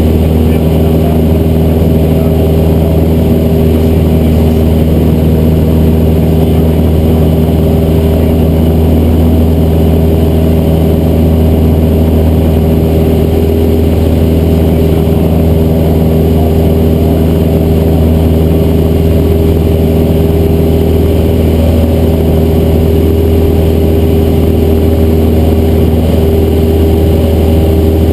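Cessna 172's piston engine and propeller running with a steady, unchanging drone.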